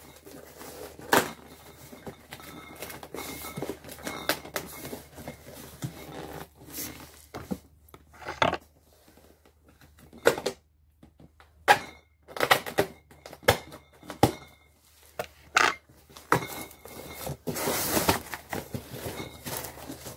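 Packing tape being picked at and torn off a cardboard box, with the cardboard flaps rustling and scraping as it is opened: scattered short sharp rips and cracks, and one longer rip near the end.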